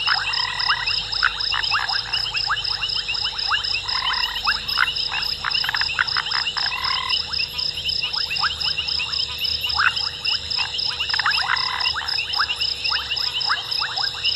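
Night chorus of frogs at a waterhole: dense clicking and croaking calls from many animals, over a steady, fast-pulsing high trill.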